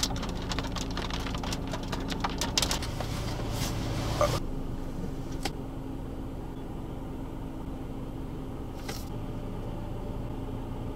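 Rain pattering over a steady low hum. About four seconds in, the rain sound stops and only the hum goes on, with a couple of faint clicks.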